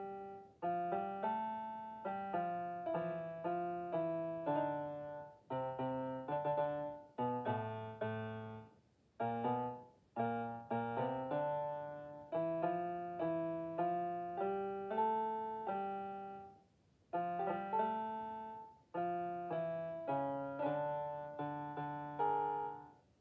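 Piano music: a melody over lower bass notes, played in short phrases with brief pauses between them. It stops near the end.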